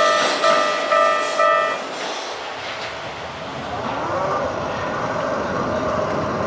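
Japanese level-crossing warning bell ringing in a pulsed ding about twice a second over the fading noise of a passing Keikyu Series 1500 train, then stopping about two seconds in as the train clears the crossing. A steadier mixed background hum follows, with a rising-then-falling tone near the end.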